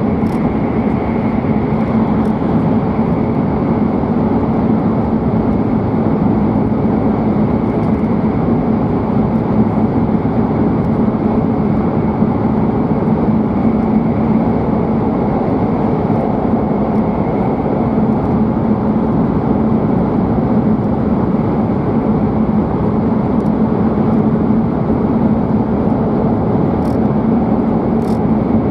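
Steady running noise inside the cabin of a W7 series Shinkansen at speed: an even rumble and rush with a faint steady hum, unchanging throughout.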